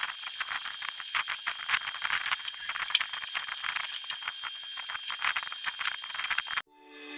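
Packaging being handled in an unboxing: a dense, irregular crackle of small crinkles and clicks, as of plastic wrap or cardboard being rustled. It cuts off abruptly near the end.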